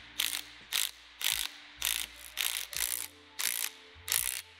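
Cordless power ratchet running in about eight short bursts, driving a bolt that presses the timing gear onto the crankshaft snout of an iron-block V8.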